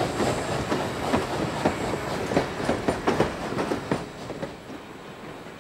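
Steam train running along the track, its wheels clacking over the rails with a steady rumble beneath. After about four seconds the clacking fades and a quieter steady rumble remains.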